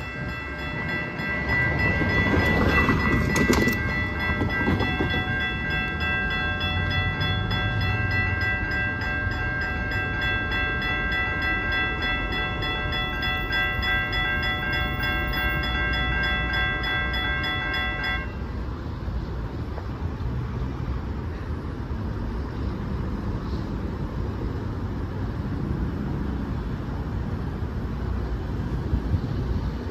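Railroad grade-crossing warning bells ringing rapidly as the crossing activates and the gate arms come down, cutting off abruptly about 18 seconds in. A rush of passing traffic about three seconds in, with steady low road and wind noise.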